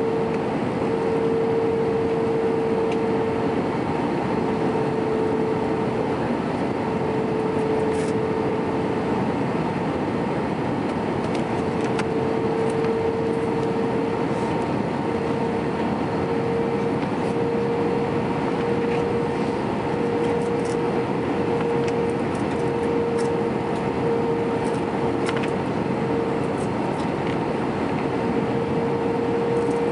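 Airbus A320 cabin noise while descending on approach: a steady rush of airflow and engine sound, with a steady droning tone that wavers slightly.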